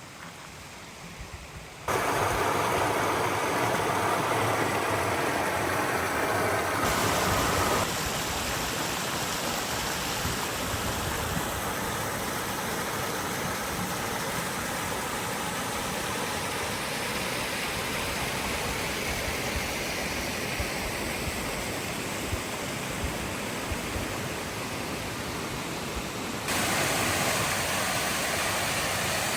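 Rushing water of a mountain creek, a steady roar without rhythm. It changes suddenly in loudness and tone about two seconds in, again near eight seconds, and once more near the end.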